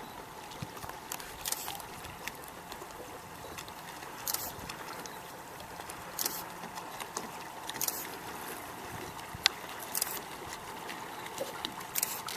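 Water splashing against a boat hull in short bursts about every two seconds, over a steady hiss and a faint steady hum.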